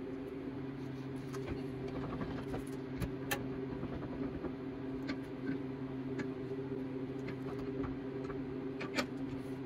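Scattered light clicks and taps of a spoked bicycle wheel and its hub being handled and laid on a workbench, over a steady low hum.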